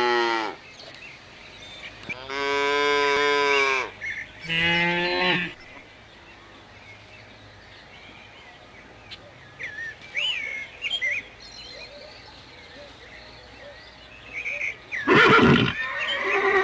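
Cow mooing: the end of one long moo, then two more long moos in the first five and a half seconds. Faint chirps follow, and a loud sound near the end.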